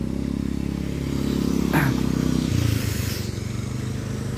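A small motor scooter's engine running close by as it rides past, its note dropping lower about halfway through.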